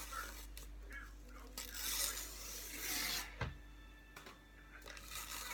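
Chunks of cornstarch being crunched and crumbled, a dry rasping crunch that is loudest from about two to three seconds in.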